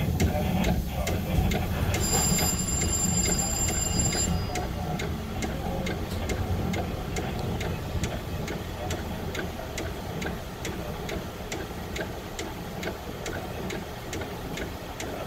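Budd M3 electric railcar rolling along the track, heard from the cab: a low rumble that slowly eases, with a steady ticking about two to three times a second. A thin, high-pitched tone sounds for about two seconds, starting about two seconds in.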